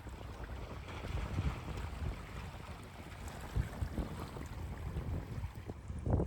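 Wind buffeting the microphone in uneven low gusts, with sea waves washing on the shore under it.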